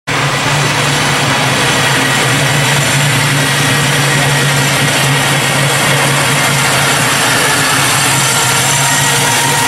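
Custom 1965 Chevy C10 pickup's engine running steadily at low speed as the truck rolls slowly past.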